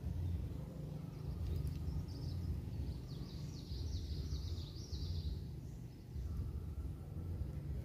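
Outdoor ambience: a steady low rumble, with a bird singing a quick run of high chirps about three seconds in, lasting around two seconds.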